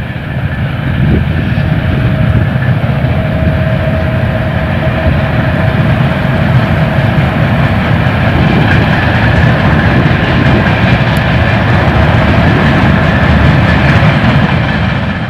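Long freight train of container wagons running past behind an electric locomotive: a steady rolling noise of wheels on rail with a faint steady whine, cutting off suddenly at the end.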